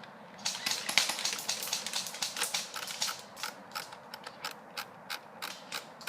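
A fast, dense run of sharp clicks, then slower irregular clicks about two or three a second.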